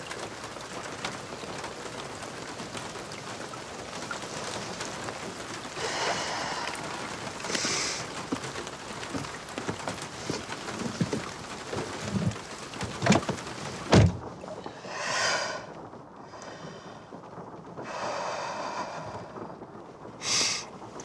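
Outdoor hiss with a few soft knocks, then a car door shut with a sharp thunk about fourteen seconds in. After it the background is duller, as heard from inside the closed car, with a few short rustles.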